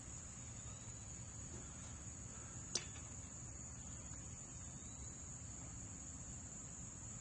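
Crickets chirring in a steady high-pitched trill, with a single sharp click a little under three seconds in.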